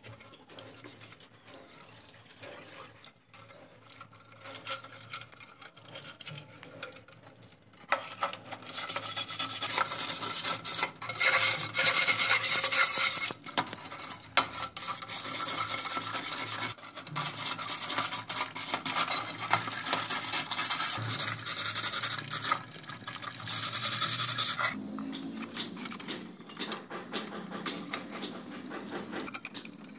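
A hand tool scraping back and forth against rusted metal lamp parts in quick, dense strokes. The scraping is loud from about eight seconds in until about five seconds before the end, with softer clinks and handling of the parts before and after.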